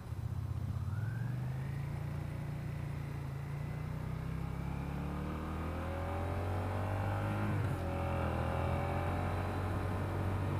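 Suzuki SFV650's 645 cc V-twin motorcycle engine under way and accelerating, its pitch climbing through the revs with a brief drop near eight seconds as it shifts gear, over a steady rushing noise.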